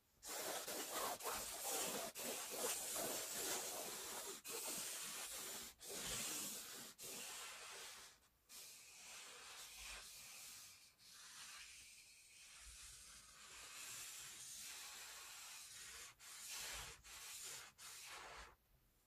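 Black felt-tip marker drawn across a stretched canvas: a steady, scratchy rubbing of the tip on the canvas weave. It is broken by several brief pauses and stops shortly before the end.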